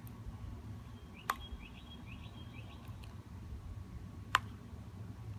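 Low steady background rumble with a bird chirping a quick run of short rising notes a little over a second in, and two sharp clicks about three seconds apart, the second louder.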